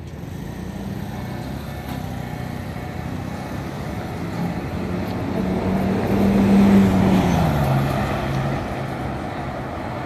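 Street traffic noise. A motor vehicle passes close by about seven seconds in: the sound swells, then its engine note drops in pitch as it goes past and fades.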